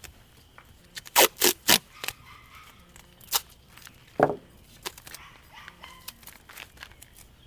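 Firework tubes and tape being handled during assembly: short scraping and ripping sounds, three in quick succession about a second in, then a few more scattered later.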